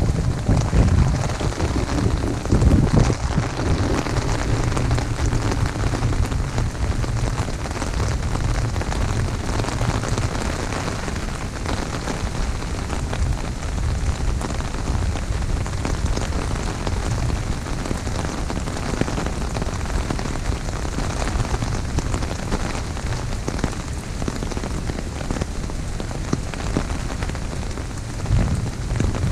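Heavy rain pattering steadily on an umbrella overhead: a dense, even hiss of countless drop hits. A low rumble of wind on the microphone swells in the first few seconds and again near the end.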